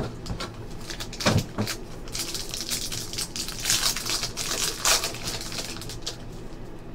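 Foil trading-card pack wrapper being torn open and crinkled by hand, a dense crackling rustle, after a cardboard hobby box is handled with a knock about a second in.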